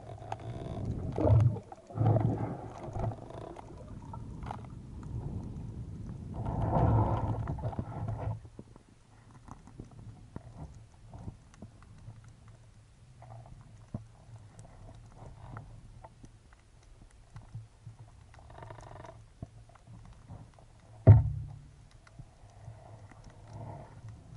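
Underwater water noise picked up by a diving camera: rumbling and gurgling, loud for the first eight seconds, then quieter with scattered small clicks. A single sharp knock comes about 21 seconds in.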